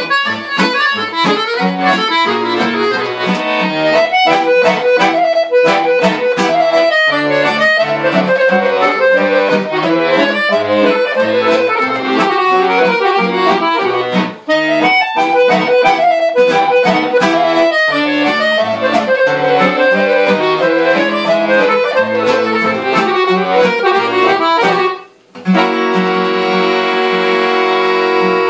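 Piano accordion playing a quick Serbian kolo dance tune, with acoustic guitar strumming along. Near the end the music breaks off for a moment and the accordion then holds one long chord.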